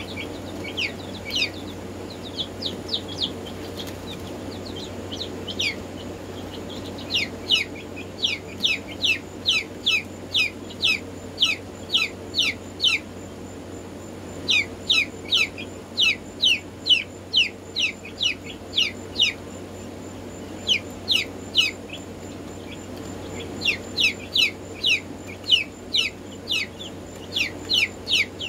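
Black Marans chicks peeping: runs of short, high cheeps that fall in pitch, several a second, broken by brief pauses. A steady low hum sits underneath.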